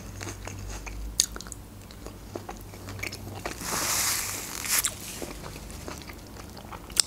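Close-miked chewing of crunchy food, with scattered sharp crunches and a longer hissing swell about four seconds in.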